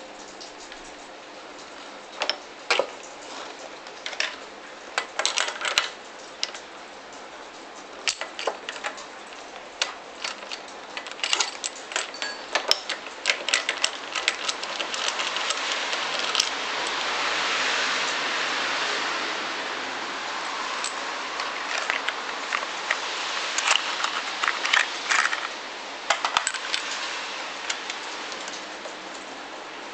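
Scattered metallic clicks, taps and clinks of hands and tools working at a small motorcycle engine's cylinder head during a spark plug change, with a stretch of steady hiss in the middle.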